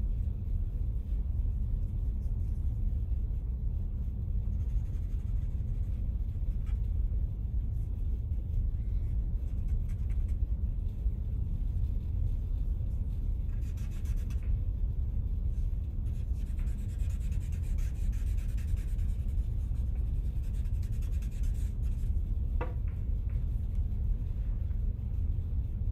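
Stick charcoal scratching and rubbing on drawing paper in a few short spells, over a steady low rumble.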